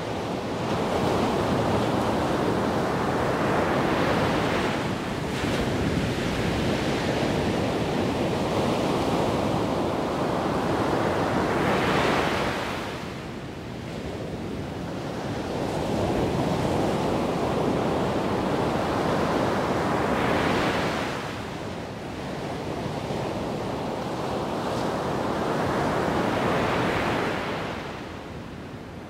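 Wind rushing over the microphone outdoors, in long gusts that swell and ease every several seconds and die down near the end.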